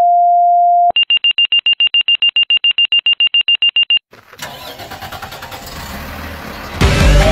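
Fire pager two-tone alert: a steady tone steps down to a second, lower tone, then gives way to a fast pulsing high beep, about ten a second. The beeping cuts off about four seconds in. Noisy vehicle-engine sound then builds, jumps louder near the end, and a siren begins to rise.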